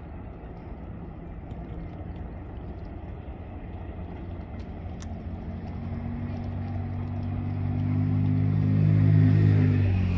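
An engine hum that builds steadily over several seconds and is loudest near the end, with a slight drop in pitch as it passes close by.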